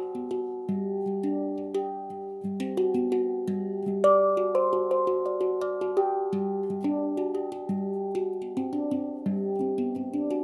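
Background music: a continuous run of short, sharply struck pitched notes, several a second, each ringing on under the next.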